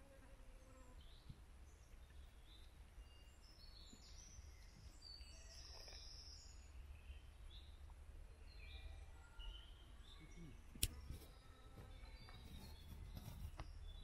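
Faint woodland birdsong: scattered short chirps and whistles from several birds over a low steady rumble, with one sharp click about eleven seconds in.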